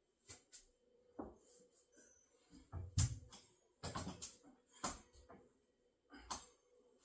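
A string of short knocks and clicks as clothing-rack bars and parts are handled and fitted together, the loudest knock about three seconds in.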